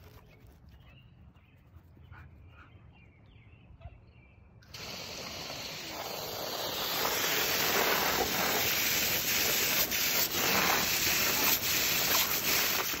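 Garden hose spray nozzle turned on about a third of the way in: a steady hiss of spraying water that grows louder over the next few seconds, then cuts off suddenly at the end.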